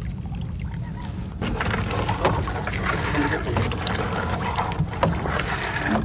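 A gill net being hauled in over the side of a small wooden outrigger boat: water splashing and sloshing, with scattered knocks and rustles against the hull over a steady low rumble.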